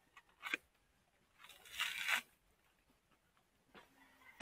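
Bolo knife working the fibrous husk of a coconut: a light knock about half a second in, the husk tearing briefly near the middle, then a sharp chop of the blade into the husk at the very end.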